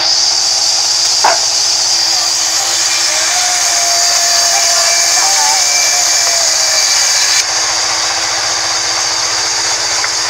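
Large sawmill band saw running steadily with a loud high hiss as rain tree timber is fed through the blade. There is one sharp click about a second in.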